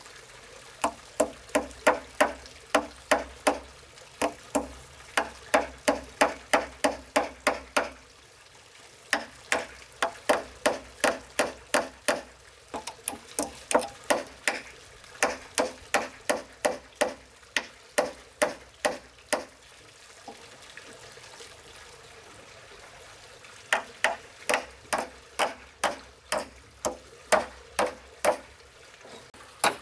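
A hand tool striking wood again and again, about three blows a second, each a sharp ringing knock. The blows come in long runs that stop twice for a few seconds.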